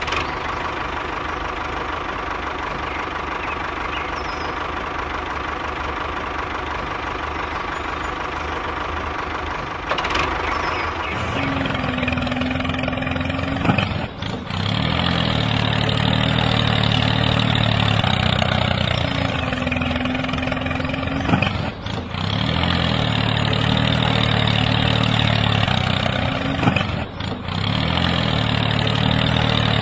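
Tractor-like engine running steadily. About ten seconds in it turns louder and deeper, and it drops out briefly three times.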